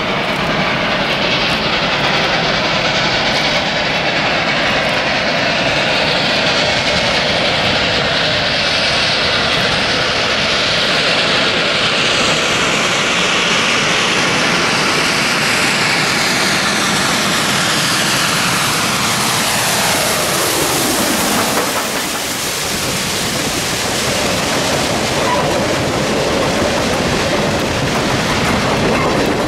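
A 2-8-0 Consolidation steam locomotive working hard, its exhaust loud, approaching and passing close by. The sound sweeps down in pitch as it goes past about two-thirds of the way through, and freight cars then roll by with wheels clattering on the rail joints.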